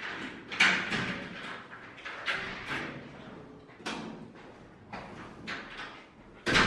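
Footsteps and a glass door with a metal lever handle being opened and pulled shut: a run of separate knocks and thuds, with the sharpest knock near the end.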